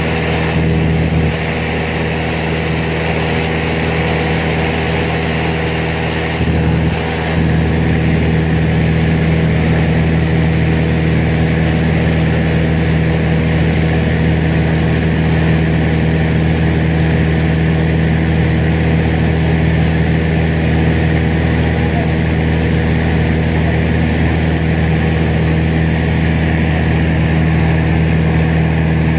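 Propeller plane's engine running steadily at cruise, heard from inside the cabin: a constant hum with the rush of air over the fuselage.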